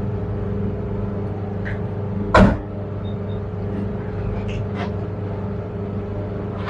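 A person eating, with one loud, sharp crunch or clatter about two and a half seconds in and a couple of faint clicks later, over a steady low hum.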